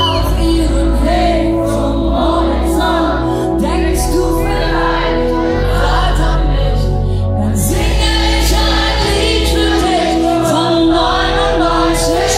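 Live pop-rock band playing with a female lead singer singing into a handheld microphone through the PA, heard from within the audience. Sustained bass notes and held chords sit under the bending vocal line throughout.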